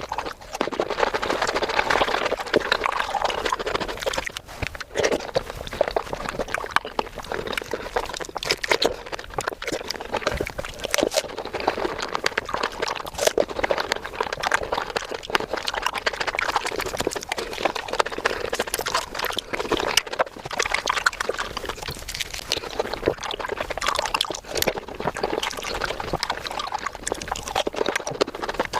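Close-miked chewing and crunching of fresh fruit, sped up about five times, so the bites, crunches and wet chewing run together into a fast, dense stream of clicks and crackles.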